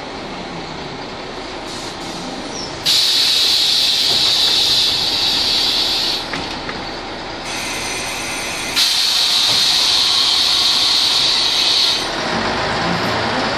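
Ikarus 280 articulated city bus with its Rába D10 diesel running: two long hisses of compressed air, one starting about three seconds in and one about nine seconds in, each lasting two to three seconds. Near the end a rising whine as the bus starts to pull away.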